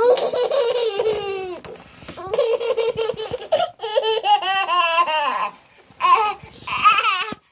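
Baby laughing in a run of high-pitched bouts, each a quick pulsing string of squeals and giggles, with short breaths between them.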